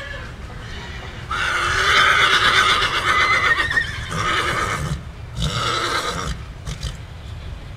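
Horse whinnying loudly: one long whinny starting about a second in, then a second, shorter whinny about five seconds in.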